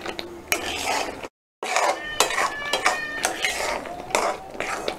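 Spatula stirring and scraping a thick jackfruit, jaggery and rice-flour mixture in a metal kadai, with irregular scrapes and knocks against the pan and a few short metallic rings. The sound cuts out completely for a moment about a second and a half in.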